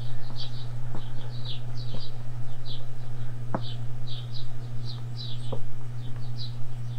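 Dry-erase marker squeaking in short strokes on a whiteboard while letters are written, with a few faint taps of the tip on the board. A steady low hum runs underneath.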